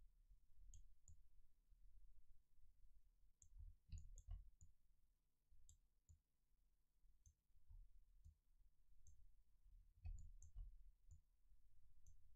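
Near silence, broken by faint, irregular computer-mouse clicks and soft low thumps as the mouse is worked.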